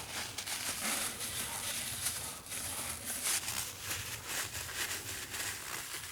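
Irregular rubbing and scraping with many small knocks, from hands working over the opened compressor's parts.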